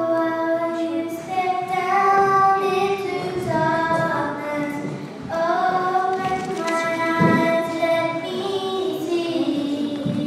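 Young girls singing a praise hymn into microphones, a sung melody in long held notes.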